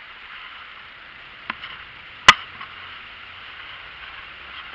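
One sharp, loud knock about two seconds in, with a fainter tap just before it, over a steady hiss.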